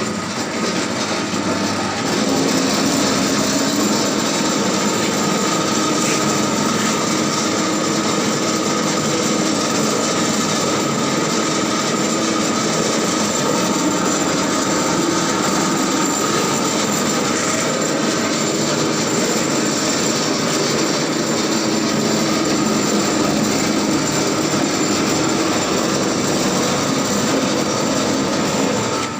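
Noodle-making machine running steadily, its motor and drive giving a constant mechanical hum with a high whine on top. It gets slightly louder about two seconds in, then holds.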